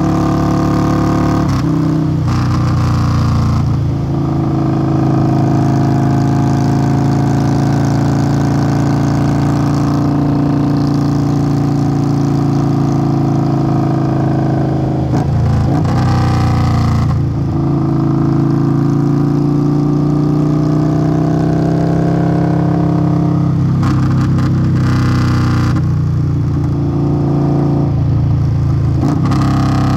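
Indian Scout Bobber's V-twin running through a Hacker Custom Mayhem aftermarket exhaust while riding, a deep steady exhaust note that rises and falls with the throttle. The note breaks briefly a couple of seconds in, about halfway through and again near the end.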